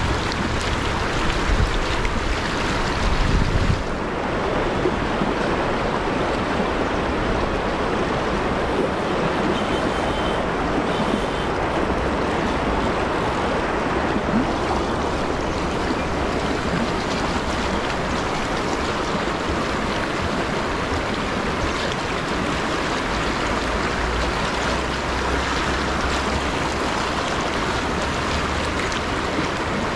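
Fast river current rushing and splashing close by, a steady wash of water noise, with some wind noise on the microphone in the first few seconds.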